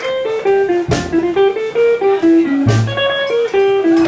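Live band music with no singing: a single-note guitar melody line over occasional bass notes and light percussion hits.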